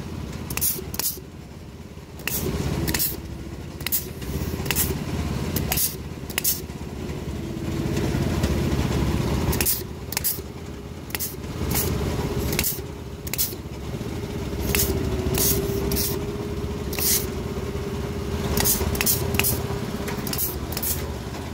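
Corded battery-powered electric pruning shears cutting through fruit-tree branches, a sharp snip every second or so at irregular intervals, over a steady low hum.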